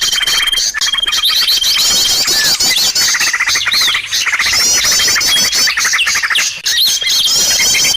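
A dense chorus of many small birds chirping, trilling and whistling at once, as a bird-lure recording for calling in birds of all kinds. Within it a high held whistle comes and goes, and the same run of calls comes round again.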